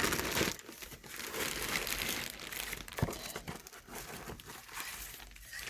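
Packaging crinkling and rustling as items are handled and unwrapped from a subscription box, with a light tap about three seconds in.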